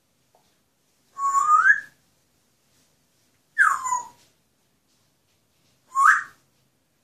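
Pet parrot whistling three separate notes: a rising whistle, then a falling one, then a short rising one near the end.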